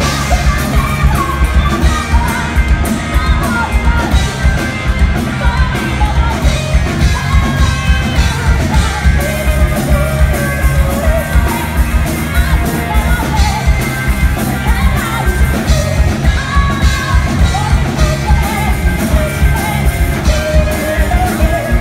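Live rock band playing: a female lead vocalist singing and shouting over electric guitars, bass guitar and drums with a fast, steady beat, heard loud from among the audience.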